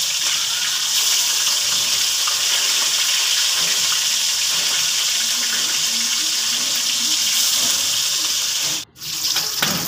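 Fish steaks sizzling steadily as they shallow-fry in hot oil. The sound breaks off for a moment near the end.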